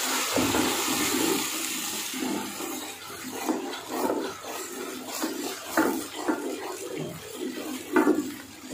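Wooden spoon stirring boiled potato paste into hot oily masala in a large aluminium pot: repeated wet squelching strokes over a hissing sizzle that is strongest at the start and fades.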